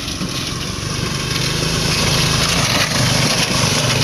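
Small 5 hp single-cylinder engine of a homemade ATV running at speed, getting louder over the first two seconds.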